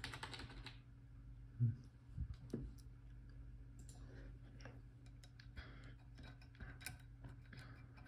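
Light metallic clicks and ticks from a disc-detainer pick turning the rotating discs inside an Abloy Classic padlock while the disc cuts are read off, over a low steady hum. A brief low sound stands out near two seconds in.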